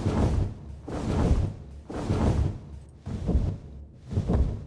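Designed dragon wing flaps: a run of five deep whooshing flaps, about one a second, with reverb added to the upfront layers to make them feel larger than life; the designer finds the reverb a little too metallic.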